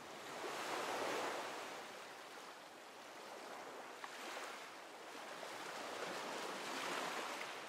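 Soft surf noise like waves washing on a shore, swelling about a second in, ebbing away, then swelling again near the end, with one faint tick about four seconds in.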